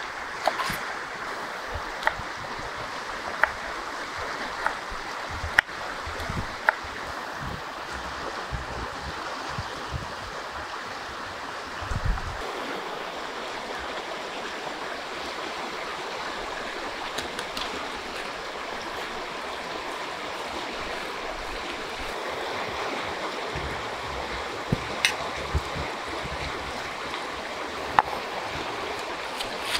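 Steady rush of flowing river water, with sharp clicks of a knife cutting a green bell pepper on a wooden board over the first several seconds, and a few knocks of a stone pestle in a stone mortar near the end.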